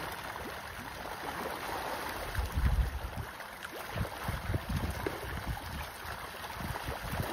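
Water splashing and churning as a dense crowd of pond fish thrash at the surface while feeding, with wind rumbling on the microphone, loudest about two and a half seconds in.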